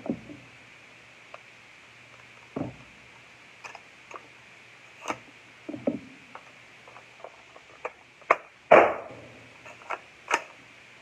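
Gunshots at irregular intervals, each sharp crack trailed by a short echo under the range roof; the loudest comes near the end, with smaller clicks and knocks between.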